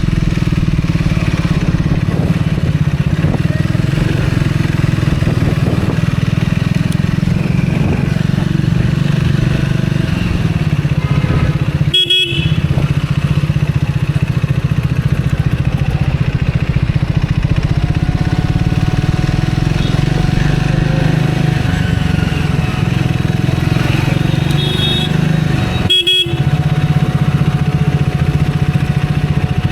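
Motorcycle engine running steadily in road traffic, with vehicle horns honking a few times.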